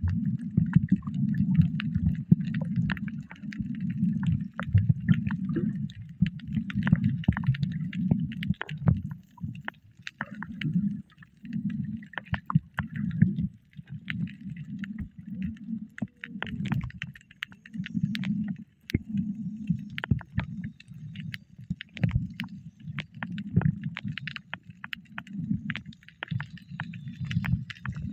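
Muffled water sounds picked up while snorkeling: a low, uneven churning rumble with scattered sharp clicks.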